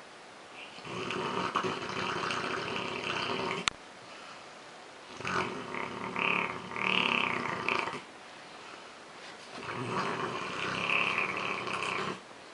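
Rottweiler snoring loudly in deep sleep: three long rasping snores, one every four seconds or so, with quieter breathing between them. A sharp click comes just as the first snore ends.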